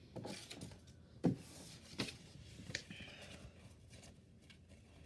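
Handling noise: a phone's microphone rubbing and rustling against clothing, with three short knocks, the first the loudest.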